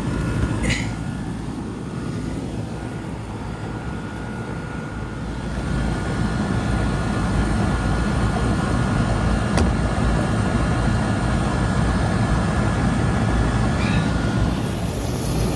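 Air-conditioning condensing unit running, its fan and compressor making a steady rumble with a faint steady whine, a little louder from about six seconds in, with one sharp click near ten seconds. The unit is running hot with a plugged condenser coil.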